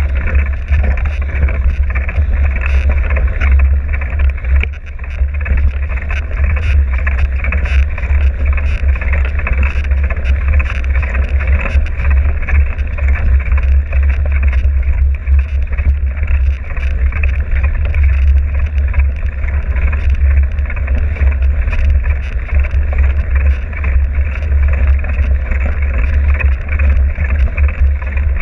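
A vehicle in motion: a steady, loud running noise with a heavy low rumble and no breaks.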